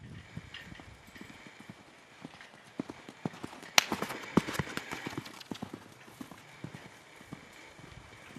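Hoofbeats of a Morgan mare cantering on the sandy footing of a round pen, louder as she passes close about four seconds in, where a single sharp crack is the loudest sound.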